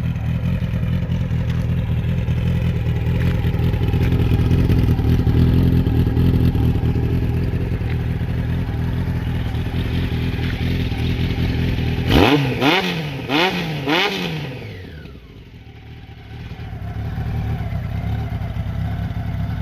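Honda CBX 750F's four-cylinder, four-carburettor engine idling steadily, then given three quick throttle blips about twelve seconds in. The revs fall away and it settles back to a steady idle.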